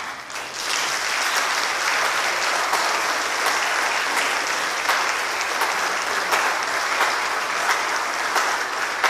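Congregation applauding: a steady round of many hands clapping that swells up quickly at the start.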